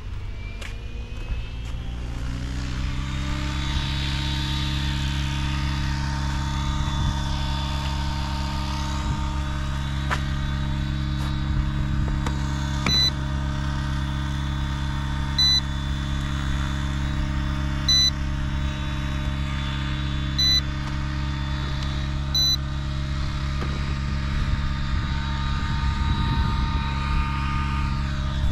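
Five short, high-pitched beeps, evenly spaced about two and a half seconds apart: the low-battery warning of a Yuxiang F09-S RC helicopter. Under them runs a louder, steady motor-like drone that rises in pitch over the first few seconds and then holds.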